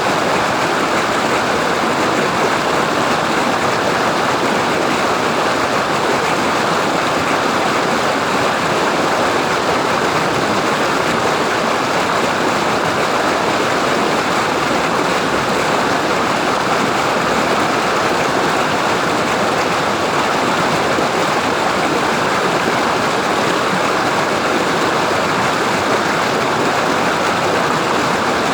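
Waterfall: falling water rushing in a steady, even hiss with no breaks.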